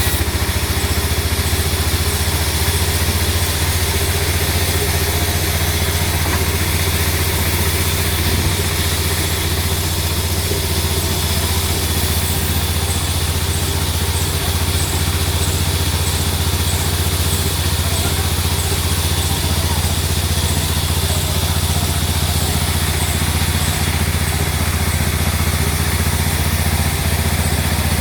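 Sawmill machinery running with a steady, unbroken low drone of an engine or motor.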